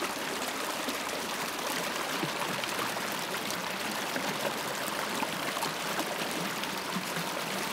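Muddy storm runoff rushing steadily through a drainage trench and gushing out of a culvert pipe.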